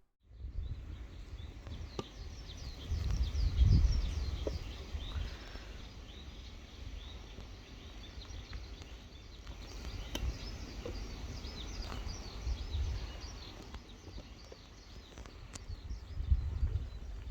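Small birds twittering in many quick chirps over a low, gusting rumble that swells loudest about four seconds in.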